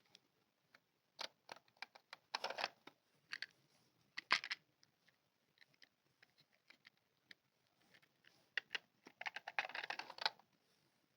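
Small plastic toy pieces being handled at close range: scattered light clicks and taps, with three short, denser rattling or rustling bursts, the longest near the end.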